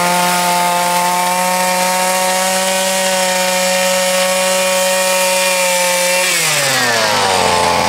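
Small two-stroke engine of a walk-behind power snow sweeper running at high speed, driving the rotating brush through snow. About six seconds in its pitch falls steadily as it slows to idle.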